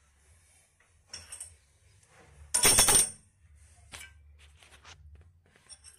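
Small metal hardware being handled: sharp clinks and ringing ticks of a washer, nut and tools against each other, with one louder clattering rattle lasting about half a second, around two and a half seconds in.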